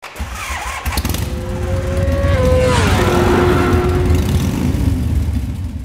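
Logo intro sound effect: a deep, engine-like rumble under a droning tone that slides down in pitch a little under three seconds in, then holds steady until it fades at the end.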